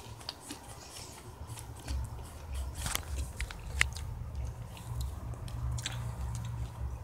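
Someone eating cereal close to the microphone: a spoon clicking against the bowl and crunching bites, in many short sharp clicks with one louder click a little before the four-second mark, over a low steady hum.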